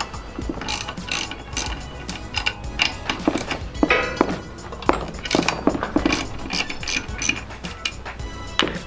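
Irregular metallic clicks and clinks of a 10 mm wrench working the bolts of the wastegate actuator on a BNR S4 turbo, with a quick run of clicks about four seconds in.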